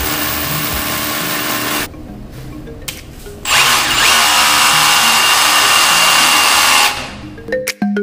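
Devon 5401-Li-20RH 20V brushless cordless rotary hammer drilling into a concrete wall in hammer mode. It runs in two bursts: about two seconds, then a pause of about a second and a half, then a louder run of about three seconds.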